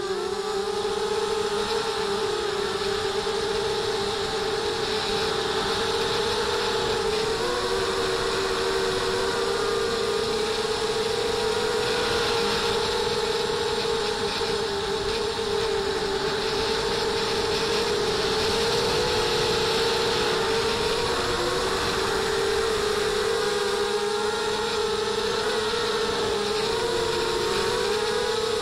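ZMR250 racing quadcopter's RCTimer 2300KV brushless motors spinning 5x4 propellers in flight, a steady whine whose pitch wavers slightly up and down.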